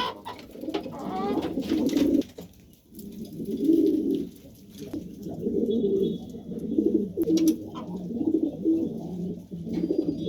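Domestic pigeons cooing in repeated low, throbbing phrases, one after another, with a few short sharp clicks. The cooing comes from a loft where the males are fighting and courting for the breeding season.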